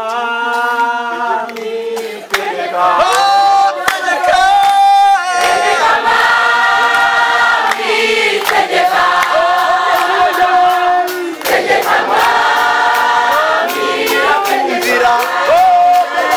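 A choir singing, in long held phrases with short breaks between them.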